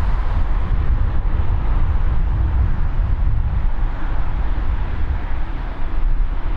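Gusty wind buffeting the microphone: a heavy, uneven low rumble with a steady rushing noise above it.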